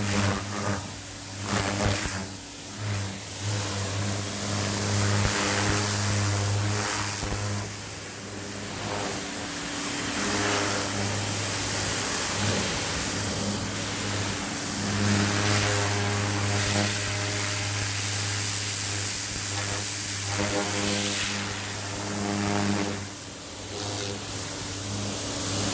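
Greenworks 1700 PSI electric pressure washer running, its motor and pump humming steadily under a hissing water spray. The hum eases and comes back a few times while the spray goes on.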